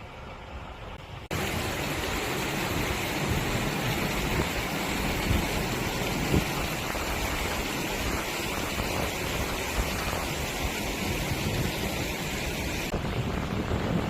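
Strong wind blowing across the microphone: a steady rushing noise with low buffeting, starting suddenly about a second in.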